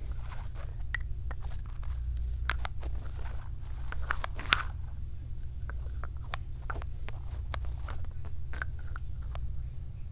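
Close-miked ASMR trigger sounds: irregular small clicks and crackles, thicker in the first half with one sharper click about four and a half seconds in, over a steady low hum.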